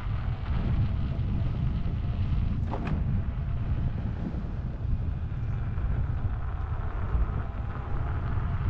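Wind buffeting a moving rider's microphone, a steady low rumble, with a brief higher sound just under three seconds in.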